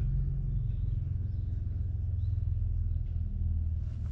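A vehicle engine running steadily, heard as a low, even rumble.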